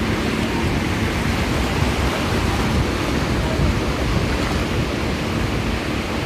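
Steady wash of shallow sea surf, with wind buffeting the microphone.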